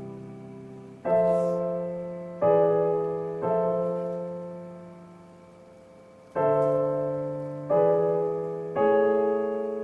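Background piano music: slow chords struck one at a time, six in all, each left to ring and fade before the next.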